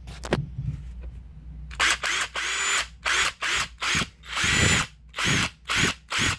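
Bauer 20V brushed compact impact driver's motor run unloaded in about ten short trigger bursts, starting about two seconds in, each a quick whirr that spins up and stops.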